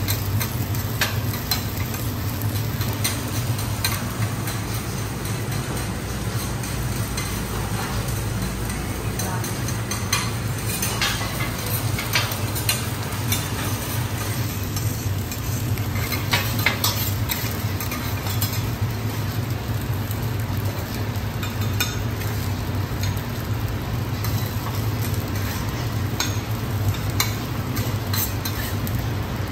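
Metal spatulas scraping, chopping and tapping on a steel teppanyaki griddle as garlic fried rice is tossed, with a light sizzle of the rice on the hot plate. Frequent short clinks and scrapes over a steady low hum.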